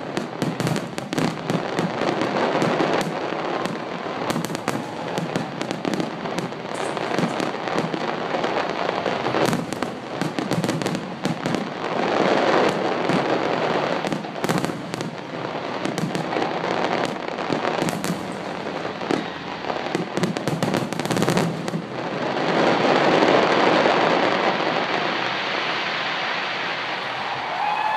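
Fireworks display in full barrage: many shells bursting in quick succession, a dense run of bangs and crackles. About three-quarters of the way through, the separate bangs give way to a louder, steady rushing wash that fades near the end.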